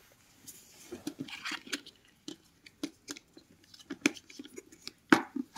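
Handling of a pen tablet in its cardboard box: light rustling, then a string of short clicks and taps, the loudest a sharp knock about five seconds in.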